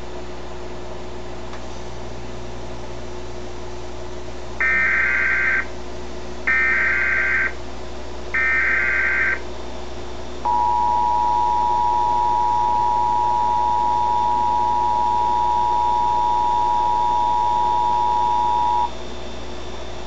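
Emergency Alert System tones from a television speaker. First come three short bursts of SAME header data, each a warbling electronic chirp about a second long. Then the two-tone attention signal, a steady dual tone, holds for about eight seconds, announcing a tornado warning.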